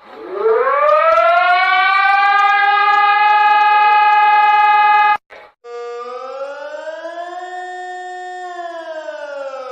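Civil defense siren winding up quickly to a steady high pitch, held for about five seconds, then cutting off abruptly. A second, quieter siren tone follows, slowly rising and then falling again in a wail.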